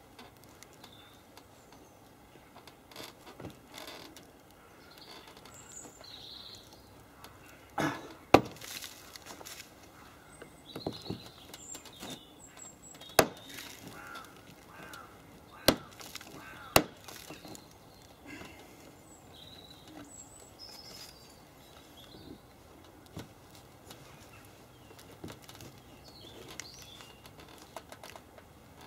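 A metal pry tool working a plastic push-rivet out of a car's wing and wheel-arch trim: quiet scraping and fiddling broken by a few sharp clicks and snaps, the loudest about eight seconds in and others between about thirteen and seventeen seconds.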